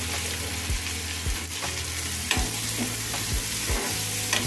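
Diced carrot and green capsicum sizzling in butter and oil in a frying pan, stirred with a steel spatula that scrapes and clicks against the pan at irregular moments.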